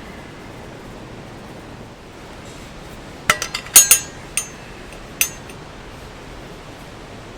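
A quick run of sharp clinks about halfway through, followed by two more single clinks, like hard objects knocked together, over the steady rush of a nearby stream.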